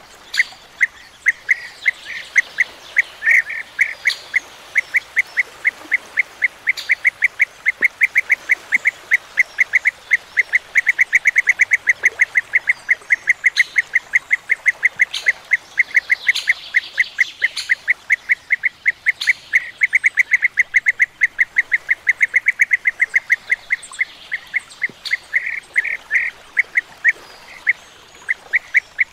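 European bee-eaters calling: a long, unbroken series of short, evenly repeated call notes, about four or five a second, with a few fainter higher calls mixed in.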